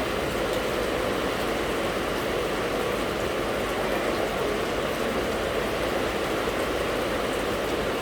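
Steady rain falling: an even rushing hiss with fine drop patter, unchanging throughout.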